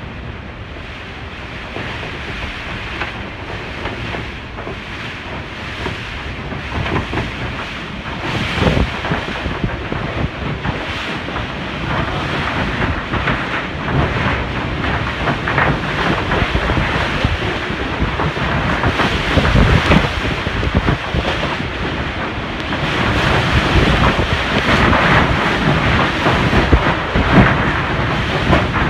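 Typhoon-strength wind gusting around a house and buffeting the microphone, with frequent knocks and rattles from the corrugated iron roof. The noise grows louder and comes in irregular surges.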